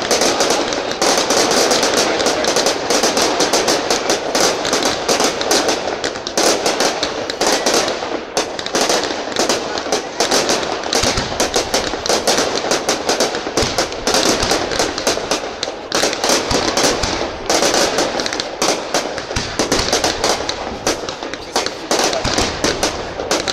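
Fireworks display: a dense, unbroken crackle and rapid pops of many bursting aerial shells, with heavier low booms now and then around the middle.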